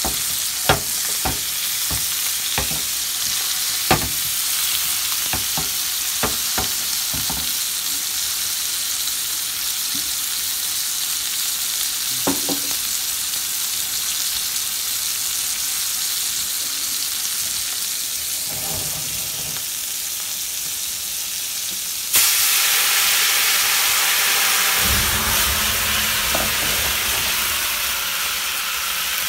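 Filet mignon steaks frying in butter in a hot skillet: a steady sizzle with scattered spattering pops. Near the end the sizzle jumps suddenly louder as cognac goes into the pan, and a few seconds later a low rumble of flames joins in as the cognac burns off in a flambé.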